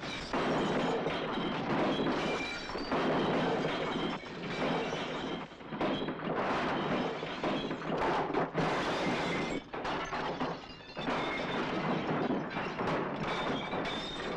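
Furniture and glassware being smashed up: wooden chairs and tables crashing and splintering and glass shattering, in a dense, continuous din of overlapping crashes and thuds with a few brief lulls.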